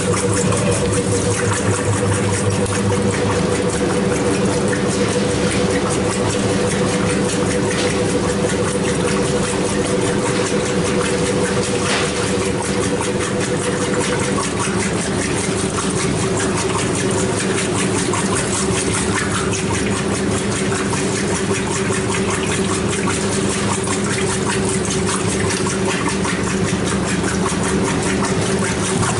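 Maytag commercial top-load washer running in its rinse stage: a steady rush of water with a motor hum. The hum's pitch steps slightly lower about halfway through.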